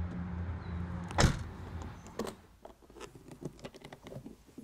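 A van's side door shutting with one heavy thump over a low steady hum. After a cut, a run of light clicks and rattles from hands working the metal hardware of a sewing machine carrying case.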